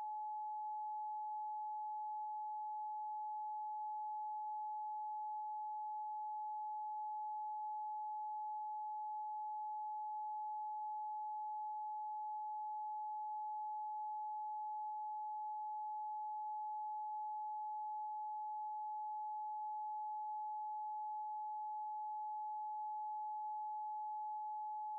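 A single steady electronic tone, one pure unchanging pitch held unbroken at an even level.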